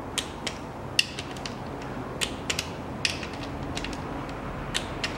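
Ratchet of a torque wrench clicking in short pairs, roughly once a second, as the bolts of the engine block's rear cover are run down to 10 N·m.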